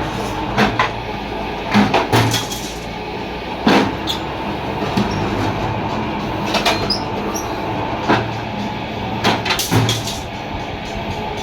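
Scrap-handling machine running with a steady low hum, broken by repeated sharp metal clanks and scrapes at irregular intervals, with a few brief high squeaks.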